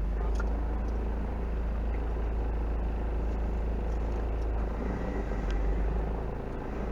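Engine of a 1986 Toyota off-road truck running steadily with a low rumble, swelling slightly about five seconds in.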